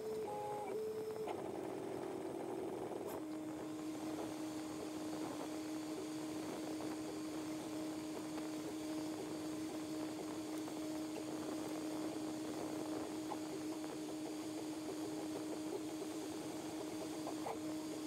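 Prusa 3D printer running. Its stepper motors whine in a few quick stepped pitches for the first three seconds, then hold one steady tone while the print head moves at constant speed.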